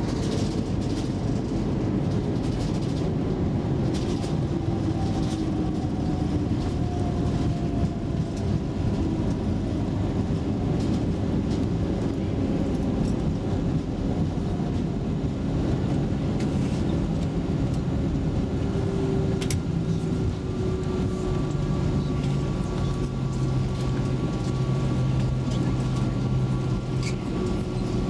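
Cabin noise of an Airbus A320 rolling along the runway after touchdown: a steady rumble from the engines and the wheels on the runway. An engine whine falls in pitch over the first several seconds, and steadier engine tones settle in near the end.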